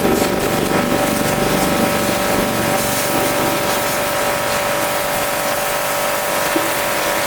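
Pressure washer running steadily: a constant motor whine over the hiss of the water jet.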